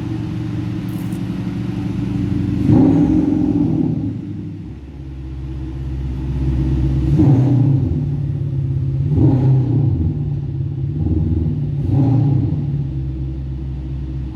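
Audi A6's 2.0-litre four-cylinder turbodiesel running and revved in about four short blips, settling back to a steady idle between them. The note comes largely from an added sound booster that amplifies the engine sound, since the diesel is quiet on its own.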